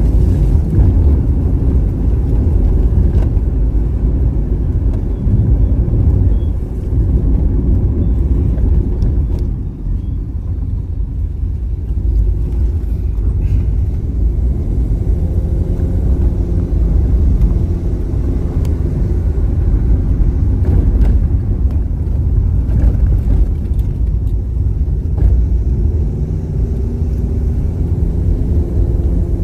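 A car being driven, heard from inside the cabin: a steady low engine and road rumble. The engine note rises and falls now and then with the car's speed.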